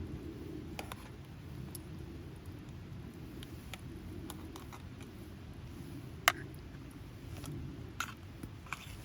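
Campfire crackling: scattered sharp pops and snaps of burning wood over a steady low rumble, with one loud pop about two-thirds of the way through.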